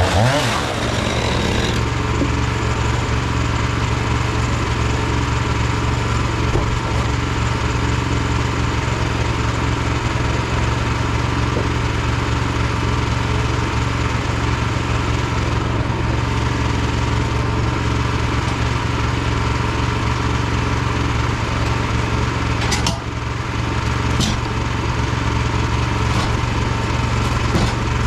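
Small gasoline engine of a lumber mill running steadily under load while sawing a log, with a brief dip in level about two-thirds of the way through.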